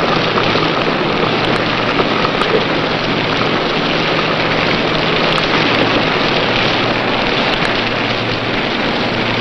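Steady rain of a squall, a continuous even hiss, with a faint low hum underneath.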